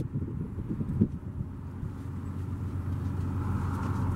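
BNSF diesel locomotives passing at low speed: a steady low engine drone with a few thuds, and a hiss that swells near the end.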